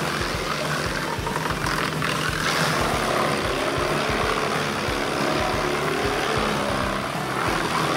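Truck-mounted wood chipper running steadily under load, chewing through logs fed into its toothed feed roller and blowing out chips in a dense, even mechanical din.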